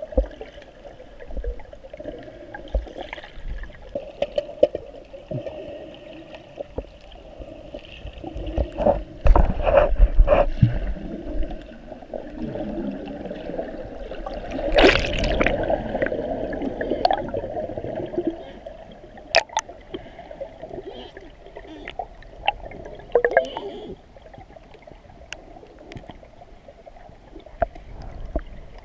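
Water gurgling and sloshing, with scattered clicks and knocks and two louder stretches, about nine and fifteen seconds in.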